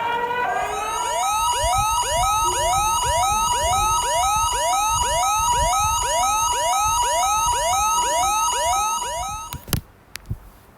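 Electronic emergency alert siren tone: rapid rising whoops, about two a second, layered over a fast two-note high-low beep. It cuts off abruptly near the end, followed by a few clicks.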